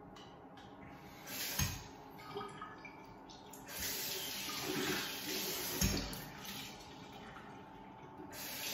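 Bathroom sink tap running into the basin in short spells, the longest starting about four seconds in and another near the end, with a few dull thumps.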